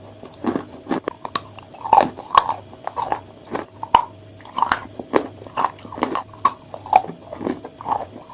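Chalk being bitten and chewed close to the microphone: a steady run of crunches, about two a second.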